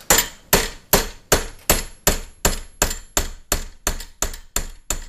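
Hammer tapping a punch to drift a sight sideways through the dovetail of a 1911 pistol slide held in a vise. About fourteen sharp metallic taps at a steady pace of roughly three a second, each with a short ring.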